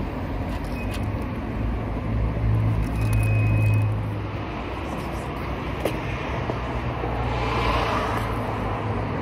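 Road traffic on a city street: a steady low engine rumble from passing vehicles, loudest about three seconds in.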